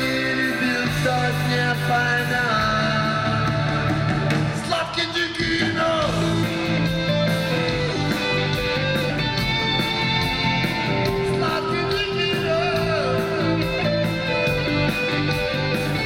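Rock band playing live: electric guitar and bass over a steady drum beat with cymbals, with bending held notes about a third of the way in and again later.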